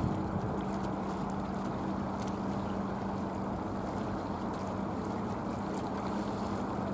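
Steady roar of jet airliner engines, with a low hum that fades out about two to three seconds in.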